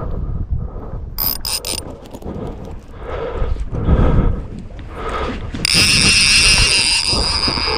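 A fishing reel's ratchet clicking in short bursts, then a steady high-pitched buzz from a little past two thirds of the way in.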